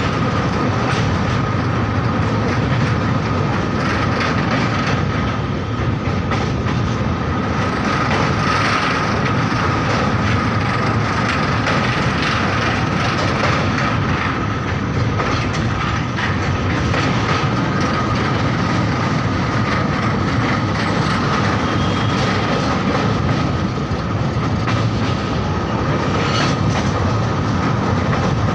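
A train running over the old iron railway bridge: a steady heavy rumble with wheels clattering over the rails and a faint high ring above it.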